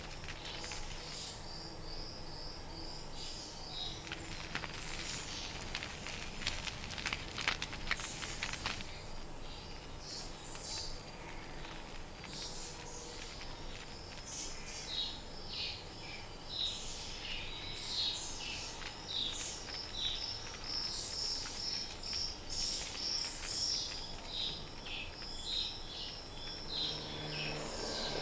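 Tropical forest ambience: many small creatures give high, rapidly repeated chirping calls, with a run of sharp clicks about five to eight seconds in.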